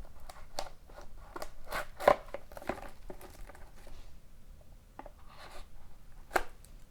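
A sealed trading-card box being cut and pried open by hand: irregular clicks, scrapes and light tearing, with a sharp click about two seconds in and another near the end.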